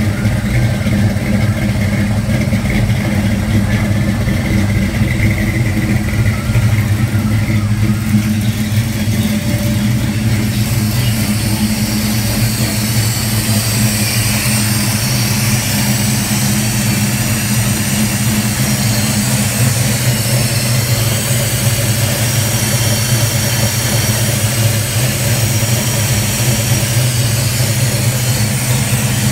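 Ford 302 small-block V8 idling steadily on its first run with newly fitted FiTech throttle-body fuel injection. About ten seconds in, a higher hiss joins as the sound shifts from the tailpipes to the open engine bay.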